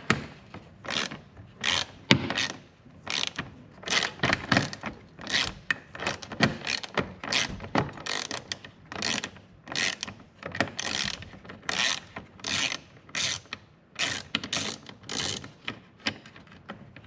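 Hand socket ratchet turning out an 8 mm bolt: a short burst of pawl clicks on each back-stroke, about two bursts a second, stopping near the end.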